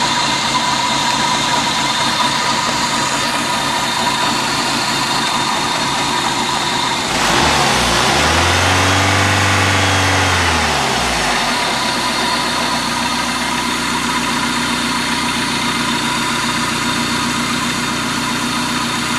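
Dodge Neon's four-cylinder engine idling steadily, revved up once about seven seconds in and let fall back to idle a few seconds later. With the EFIE voltage backed off to the right point, it is running normally rather than chugging.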